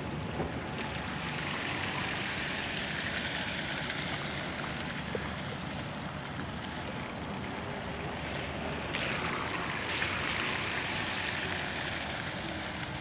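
Wind on the camcorder microphone with a steady low rumble, and two long rushing swells of hiss lasting a few seconds each, one about a second in and one near the end.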